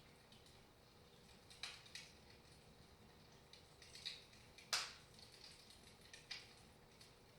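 Wood fire in a fireplace crackling softly: scattered quiet snaps and pops at uneven intervals, with one sharper pop past the middle.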